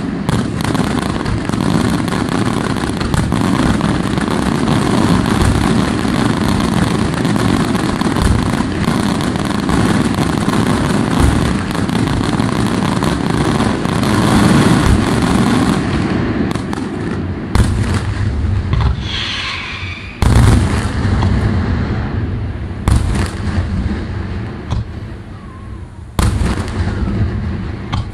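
Daytime fireworks: a dense, continuous barrage of bangs and crackling for the first sixteen seconds or so, then thinning out to single heavy bangs a few seconds apart, each trailing off as it echoes.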